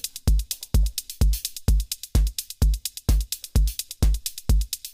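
Native Instruments Maschine drum pattern looping: a steady electronic kick about twice a second with fast hi-hat ticks in between.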